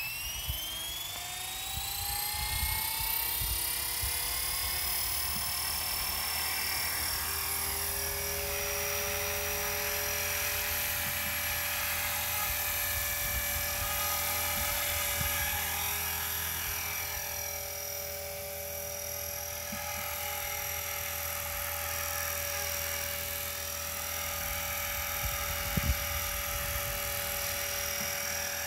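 Blade 400 electric RC helicopter's motor and main rotor spooling up with a rising whine over the first few seconds, then holding a steady high whine as it hovers and flies, its pitch dipping and recovering now and then.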